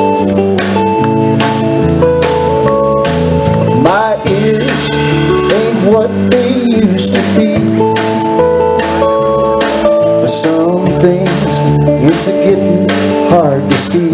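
A live rock band playing, with electric guitar and bass holding chords over a steady drum beat. A man's singing voice comes in about four seconds in.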